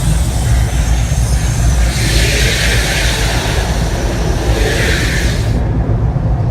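The Mirage volcano show's deep, steady rumble. A loud hissing rush joins it about two seconds in and cuts off abruptly near the end.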